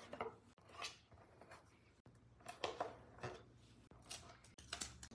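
Faint handling sounds: fingers pressing and rubbing double-sided tape onto thin wooden puzzle boards, then pressing a board down onto a tabletop, heard as a scattering of short, soft scrapes and taps.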